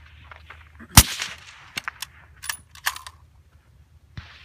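A single suppressed rifle shot from a bolt-action 6.5 Creedmoor fitted with a SilencerCo Harvester suppressor, about a second in, with a short ringing tail. Several sharp metallic clicks follow over the next two seconds as the bolt is worked, and one more click comes near the end.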